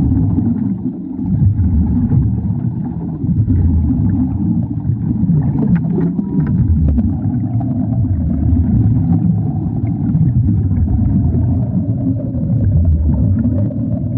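Welding in water: a steady, dense low rumble with faint scattered crackles.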